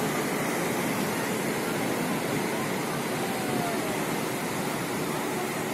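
Steady rushing noise of sea surf breaking on the beach, mixed with wind.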